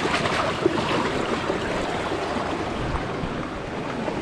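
Steady wash of sea waves on the beach, with some wind rumbling on the microphone.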